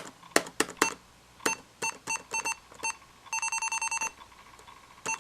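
Laptop keyboard keystrokes, then short electronic beeps from the computer's internal speaker: six separate beeps, then a quick run of about a dozen in under a second, and a final keystroke near the end.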